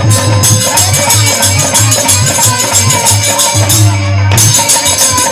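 Folk music with a steady driving beat, a pulsing bass and jingling shaker or tambourine-like percussion, with some voice over it.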